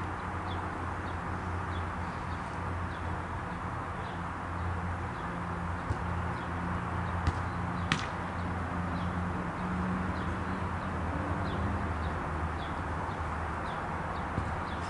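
Outdoor ambience at a football pitch: a steady background hiss with a low hum, and a bird chirping about twice a second throughout. Two sharp knocks of the ball being kicked a little over seven and eight seconds in are the loudest sounds.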